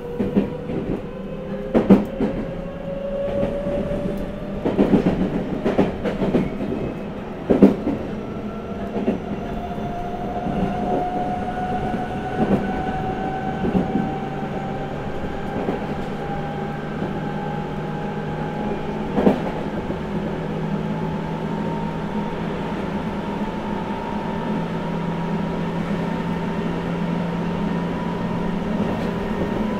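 Seibu 6000 series electric train with a Hitachi GTO-VVVF inverter, heard from on board: the traction motor whine climbs steadily in pitch as the train gathers speed. Sharp clacks of wheels over rail joints come now and then in the first twenty seconds, over a steady running noise.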